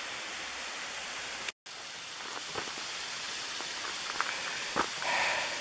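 Steady rushing hiss of water running down a rocky hillside and along a roadside ditch. The sound cuts out completely for a moment about a second and a half in. A few light knocks come in the second half.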